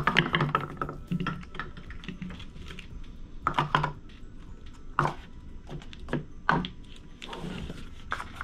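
Stack of paper cups toppling and clattering onto a tabletop, then light knocks and taps as the cups are picked up and handled a few more times.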